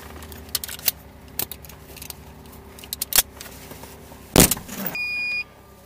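Small clicks and rattles of hands working in a light aircraft's cockpit, then a loud knock about four and a half seconds in as the hinged side window is pulled shut, followed by a short electronic beep near the end.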